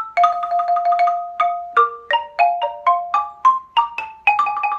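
Xylophone struck with mallets, playing a quick ragtime phrase of short ringing notes, with a fast run of repeated notes in the first second and a half.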